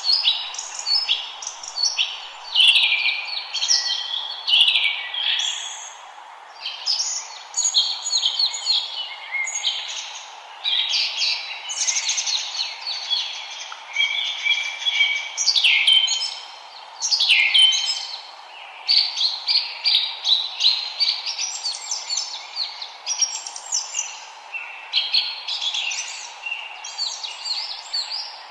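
A chorus of forest songbirds singing and chirping at once, many quick high notes, trills and short whistles overlapping without pause, over a steady background hiss.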